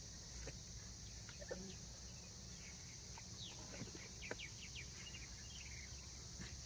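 Faint outdoor ambience: a steady, high insect chorus, with short bird chirps. A quick run of falling chirps comes about three to five seconds in.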